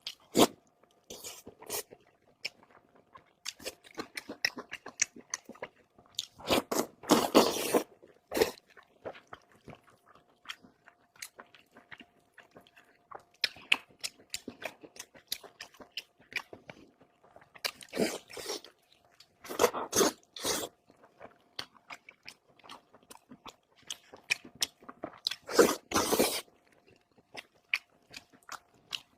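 Close-miked eating of tender stewed pork with rice: chewing and biting with many short wet mouth clicks, and a few louder bursts now and then.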